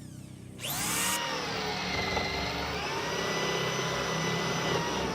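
Electric drill turning a large auger bit: the motor starts about a second in, its whine rising quickly, then runs steadily while drilling.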